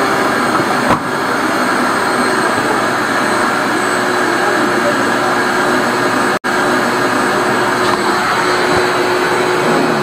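Drain suction machine running steadily, pulling through a corrugated hose to clear a blocked sink drain: a constant rush of air with a steady motor hum and a faint high whine. The sound cuts out for an instant about six and a half seconds in.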